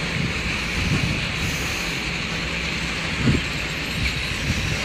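Steady rumble of a train with wind noise on the microphone, and a few brief low thumps, the loudest about three seconds in.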